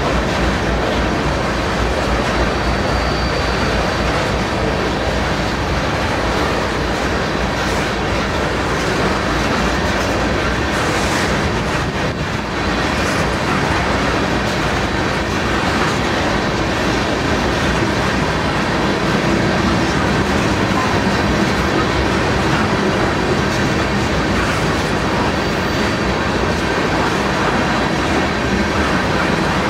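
Freight train of loaded crude-oil tank cars rolling past at close range: a steady rumble and clatter of steel wheels on the rails.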